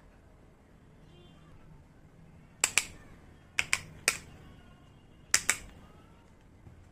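Small hard objects clicking: seven sharp light clicks, mostly in quick pairs, starting about two and a half seconds in and ending about three seconds later.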